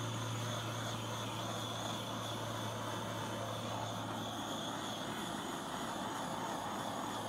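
Handheld butane torch burning with a steady hiss, its flame played over a wet acrylic paint pour to bring up cells.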